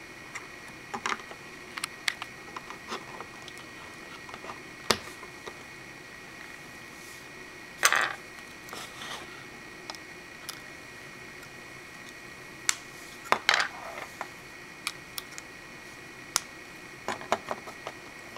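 Hard plastic Lego Bionicle parts clicking and snapping as pieces are pressed onto the figure's ball joints and handled, in scattered sharp clicks with louder clatters about eight and thirteen seconds in.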